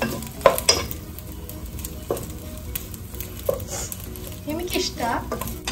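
Wooden spoon stirring and tossing macaroni in a sizzling pot on the stove, with a few sharp knocks of the spoon against the pan.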